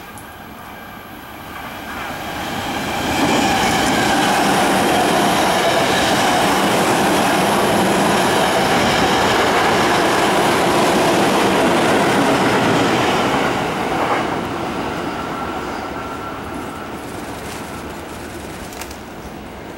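Electric commuter train passing along the next track at the platform with steady rail and wheel running noise. It builds over a couple of seconds, stays loud for about ten seconds, then fades as it clears.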